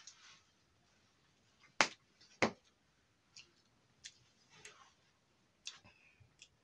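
Eating sounds close to the microphone: scattered sharp clicks and smacks, the two loudest close together about two seconds in.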